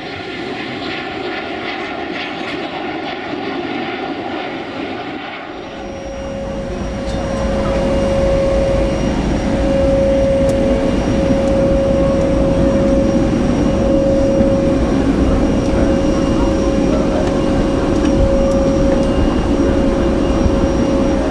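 Aircraft engine noise: a steady whine over a low rumble, which grows louder about six seconds in and then holds.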